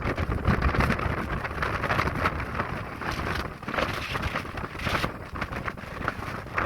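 Strong wind blowing in gusts: a rushing noise with a low rumble underneath that keeps swelling and easing.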